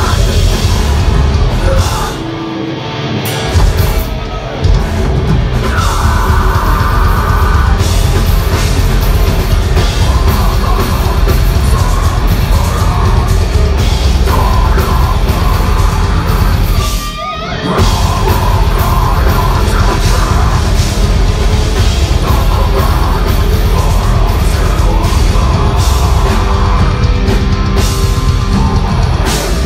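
A heavy metal band playing live and loud: distorted electric guitars and a drum kit, with two brief breaks in the music, about two seconds in and around seventeen seconds in.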